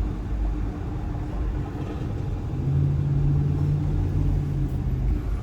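Car cabin while driving: a steady low engine and road rumble, with a steady low drone that comes in a little past halfway and fades out shortly before the end.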